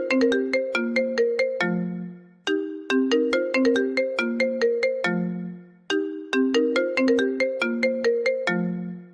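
A phone ringtone: a short melody of quick ringing notes that ends on a low held note. The phrase loops about every three and a half seconds.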